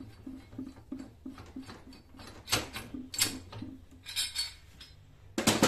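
Metal clanks and clinks of a steel screw-type coil spring compressor being handled and lifted off a car's front strut spring, with the loudest clank near the end.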